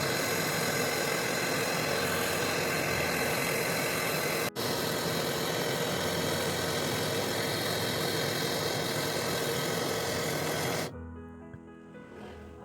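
Refrigeration vacuum pump running steadily, evacuating the cooler's refrigerant lines. It cuts out for an instant about four and a half seconds in, and near the end gives way to quiet background music.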